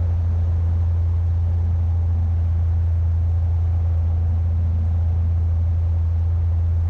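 Single-engine light aircraft's piston engine droning steadily in cruise, heard from inside the cabin.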